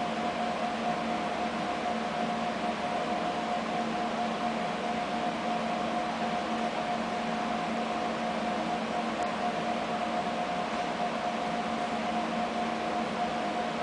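Steady machinery hum with a constant whine over a hiss of air noise, unchanging throughout.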